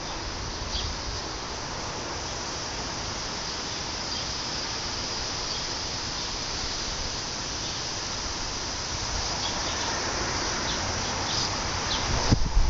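A steady chorus of insects buzzing in summer woodland, with a few short bird chirps. Near the end, loud low rumbling bursts of wind hit the microphone.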